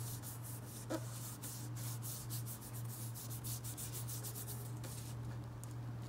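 Hands rubbing firmly over folded construction paper, repeated short swishing strokes, several a second, that stop about five seconds in. The rubbing presses the paper onto a painted fern inside to transfer a print.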